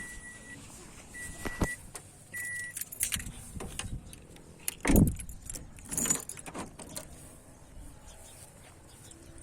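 A car's warning chime beeping three times, with keys jangling and clicks, then a loud thump about five seconds in and more clatter after it.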